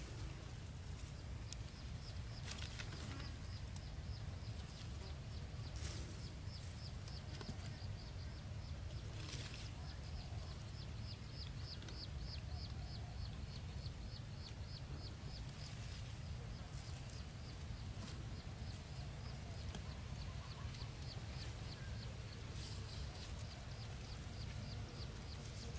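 Dry sticks and grass rustling, with a few sharp snaps and clicks as thin sticks are handled and set into the soil by hand, over a steady low rumble. A fast, even, high-pitched ticking call runs through the middle stretch.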